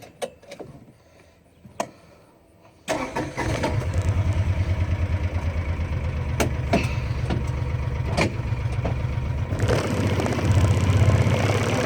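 A few clicks, then a vehicle's engine starting about three seconds in and running with a steady throb, getting louder near the end as it pulls away.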